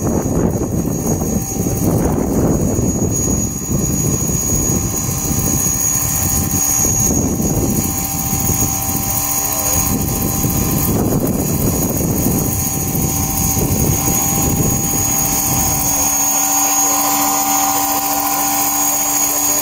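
Large-scale electric model Aérospatiale Lama helicopter in flight: the rotor blades whir over a steady high whine from the electric drive. A low, uneven rumble under it stops about three-quarters of the way through.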